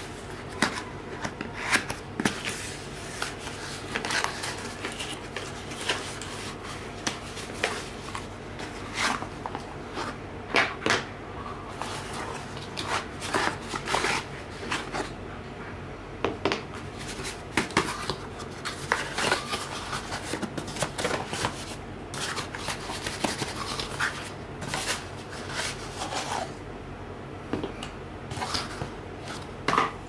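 Cardboard box flaps rustling and being handled, with hard plastic washing-machine stand cups clicking and knocking as they are taken out and set down on a hard tabletop. The knocks come irregularly, several every few seconds.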